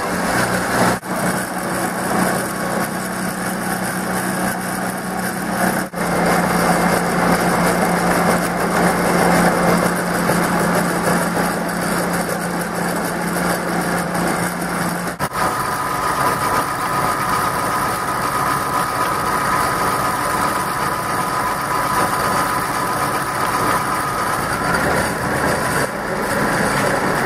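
Old half-horsepower, 1725 rpm electric motor running steadily under load while driving a car alternator, pulled down to about 1676 rpm. A steady hum, with a higher steady whine taking over about halfway through.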